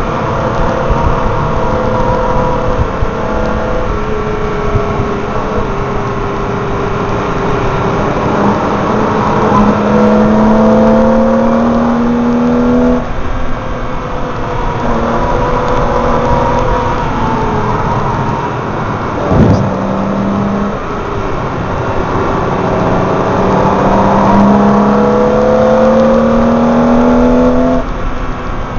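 BMW M3 engine driven hard on a race track, its pitch climbing through each gear and dropping sharply at the upshifts, several times. Wind and tyre roar come through a microphone mounted on the car's number plate.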